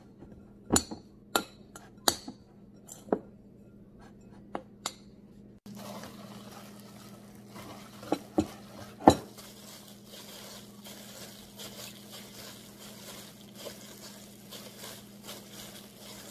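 Spoon clinking against a glass mixing bowl of cooked rice, a handful of sharp clinks over the first five seconds. Then hands in plastic gloves mix the rice in the bowl: a few knocks against the glass, then a soft continuous rustling with small ticks.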